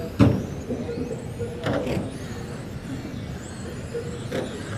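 Radio-controlled 1/10 electric touring cars racing, their motors and gears whining high, the pitch rising and falling with throttle. A sharp knock about a quarter second in is the loudest sound, with softer clicks around two and four seconds in.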